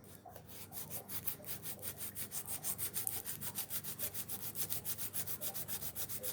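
Sandpaper rubbed back and forth by hand over an old wooden handle, stripping off thick lacquer and paint down to the bare wood: quick, even scraping strokes that begin just after a brief pause.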